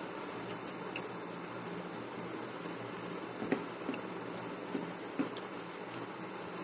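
Steady fan-like background hum, with a few light clicks and squishes from fingers mixing biryani rice on a banana leaf.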